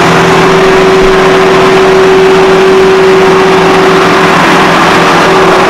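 Case IH Quadtrac 540 tractor's diesel engine running steadily, warming up after sitting unused for a while, with a constant hum over the engine noise.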